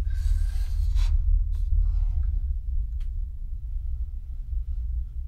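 A Ouija-board planchette scraping briefly across the board in the first second, then a few faint clicks, over a low steady rumble that is the loudest sound throughout.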